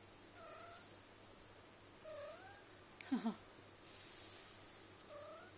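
Bengal cat and kittens mewing during play: four short cries that dip or rise in pitch, the loudest a sharp falling double cry about three seconds in.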